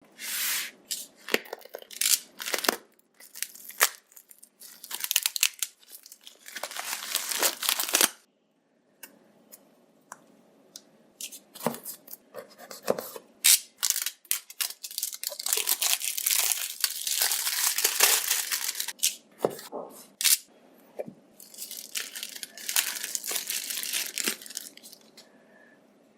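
Packaging of an iPhone X being unboxed: plastic wrap and paper torn and crinkled in several spells, with sharp clicks and taps of the box being handled in between.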